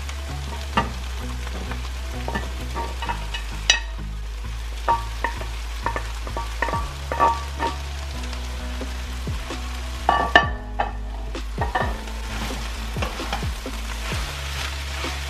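Shredded chicken and onions sizzling in a stainless steel pan while a wooden spoon stirs and scrapes through them, with scattered knocks of the spoon against the pan, the sharpest about 4 s and 10 s in. A steady low hum runs underneath.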